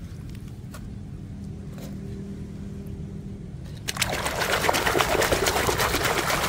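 A low steady hum, then about four seconds in a hand plunges a plastic toy car into shallow river water and swishes it about, splashing and sloshing loudly.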